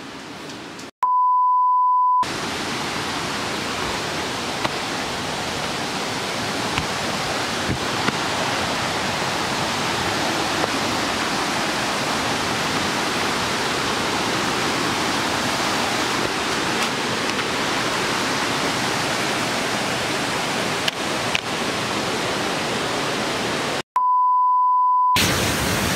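A steady 1 kHz beep tone lasting about a second, then about 22 seconds of steady rushing waterfall noise that grows slightly louder, with a few faint clicks, then a second 1 kHz beep near the end.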